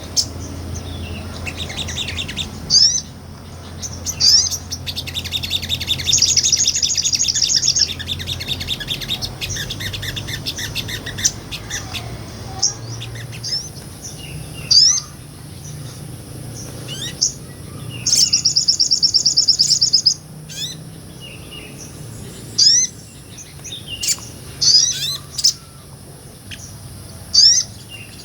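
Sogon, a small nectar-eating bird, singing energetically: sharp high chirps, several sweeping downward, and two fast buzzy trills of about two seconds each, one about six seconds in and one near eighteen seconds. A low hum sits under the first eight seconds.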